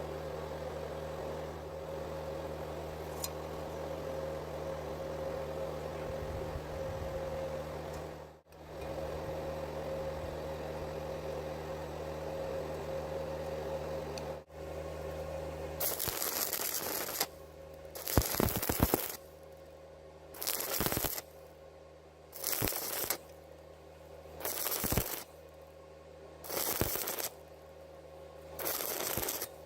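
Arc welding on thin square tube: a steady crackling arc with a humming welding machine for about half the time. Then the arc is struck and broken in short bursts of about a second, roughly every two seconds, seven times, stitch-welding the thin wall.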